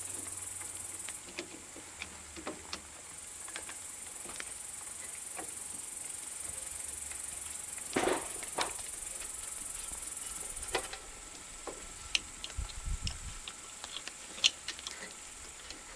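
A steady, high insect drone that cuts out briefly near the start and again about 11 s in. Over it come scattered clicks and knocks of an electric starter motor being handled and seated against a Briggs & Stratton 10 hp engine: a sharp pair about 8 s in, then a run of small clicks and a few dull thumps near the end.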